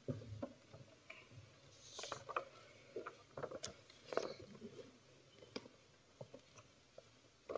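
Faint, scattered soft knocks, clicks and rustles of people shifting and moving in wooden pews and stalls, with a small cluster of knocks about three to four seconds in.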